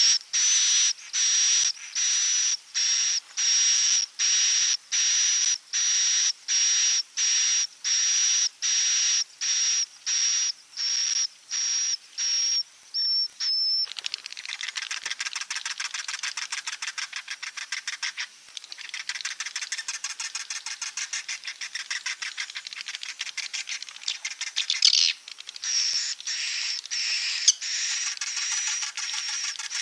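Recorded swiftlet calls played as a roosting ('inap') lure for swiftlet houses. Evenly spaced buzzy, high chirps come about twice a second, then about halfway through they give way to a dense, rapid chittering.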